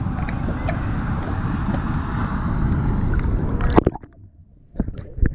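Ocean water sloshing and splashing around a GoPro at the surface, with wind on the microphone. About four seconds in the sound suddenly drops to a muffled low rumble for about a second, then splashing returns.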